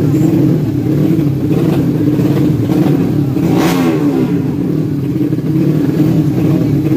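Motorcycle engines running steadily, with one bike rushing past about halfway through, its pitch dropping as it goes by.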